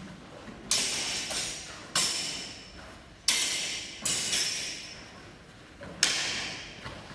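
Synthetic nylon messer blades clashing in sparring: about five sharp clacks a second or so apart, each ringing out briefly in the large hall.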